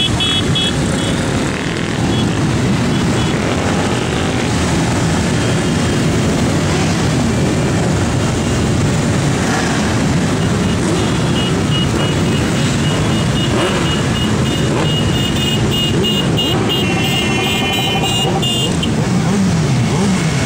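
Many motorcycles riding past one after another, their engines blending into a steady, loud traffic noise. A high beeping tone repeats for several seconds in the second half.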